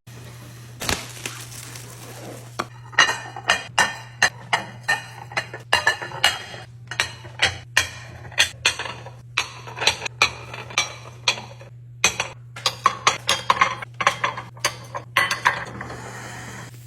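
A quick series of sharp clinks and clicks as glass jars and kitchen containers are handled and set down, with a brief hiss near the start and a steady low hum underneath.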